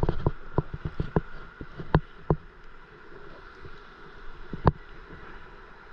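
Small waves lapping against a stand-up paddle board's hull, heard as a run of irregular short knocks over a low wash of water, thinning out after about two seconds, with one more sharp knock near the end.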